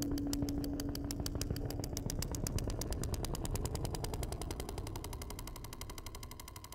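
Rapid, evenly spaced clicking that speeds up steadily, from about six to well over a dozen clicks a second, over a low rumble. A held low hum fades out about two seconds in.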